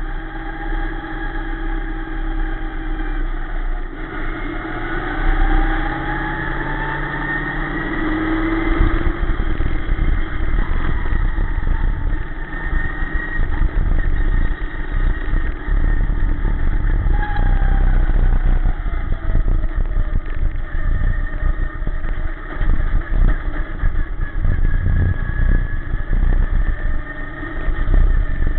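Dirt-track sportsman race car's engine, heard from inside the cockpit during a lap. Its pitch climbs for several seconds, holds high, then drops as the driver lifts for a turn, over a steady low rumble from the car.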